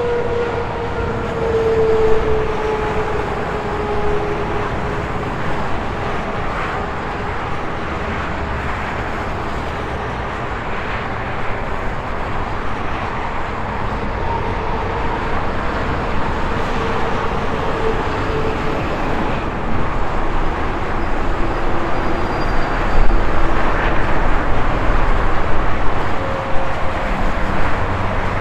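Highway traffic passing in a steady rush of tyre and engine noise. In the first few seconds a passing vehicle's tone slides down in pitch, and near the end the noise grows louder with a deeper rumble as a heavier vehicle comes close.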